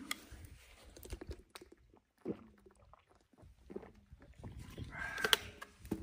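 A man drinking from a plastic water bottle: scattered small handling clicks, then swallowing for about a second near the end.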